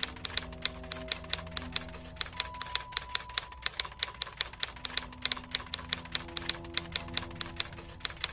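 Typewriter keys clacking in a quick, even run, several strikes a second, as text is typed out. Soft sustained music chords sit underneath.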